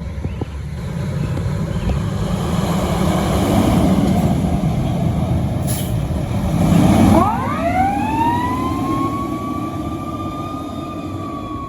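A fire engine's heavy engine pulls away with a loud low rumble and a short hiss about six seconds in. About seven seconds in its siren winds up quickly in pitch, then holds and slowly falls away.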